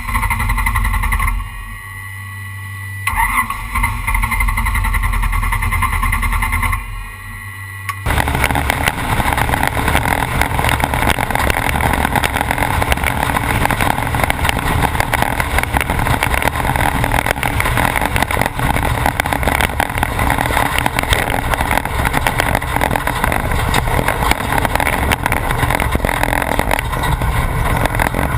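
Class 1450 off-road race truck heard from on board: a low engine rumble that drops off twice in the first few seconds, then from about eight seconds in a steady, loud mix of engine and driving noise as the truck runs along the course.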